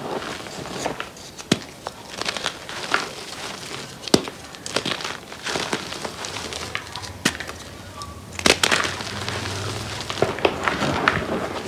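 Blocks of gym chalk crushed and crumbled by hand into loose powder: a dry crunching and crackling, broken by sharp snaps as pieces break. The loudest snaps come about four seconds in and again past eight seconds.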